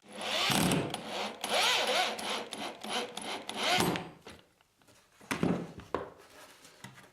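Power drill-driver running a wood screw into timber, the motor whining for about four seconds with its pitch dipping and rising as the screw bites, then two brief bursts of the trigger.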